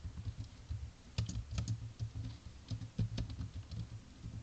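Computer keyboard being typed on: irregular, separate keystrokes as a line of C code is entered.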